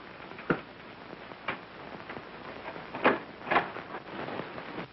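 Four separate knocks spread over a few seconds, the last two close together and loudest, over the steady hiss of an old film soundtrack.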